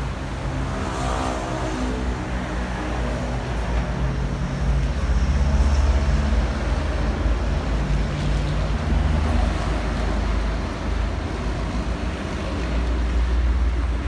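Vehicle engine running with a steady low rumble, as detainees are loaded into a caged police truck.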